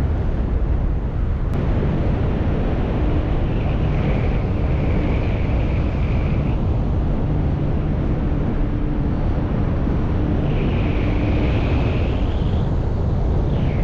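Loud, steady wind rushing over the microphone in BASE-jump tracksuit flight, with a faint high whistle that comes and goes.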